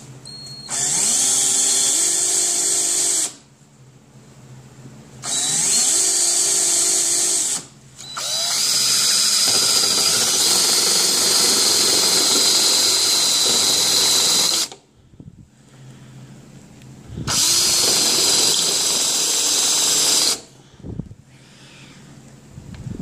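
Power drill boring into the sheet-steel cab corner of a 1984 Chevy pickup to drill out its factory spot welds. It runs in four bursts: three of about two to three seconds and one longer run of about six seconds. Each burst starts with a rising whine as the drill spins up and cuts off sharply.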